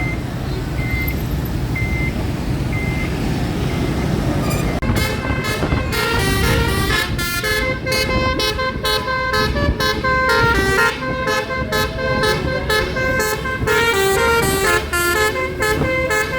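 A bus engine running with a short beep about once a second. Then, from about five seconds in, the bus's basuri telolet musical horn plays a fast tune of short notes that change pitch quickly.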